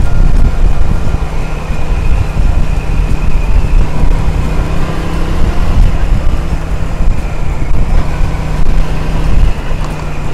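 Cruiser motorcycle engine running steadily at cruising speed, heard under heavy wind buffeting on the microphone as the bike rides along.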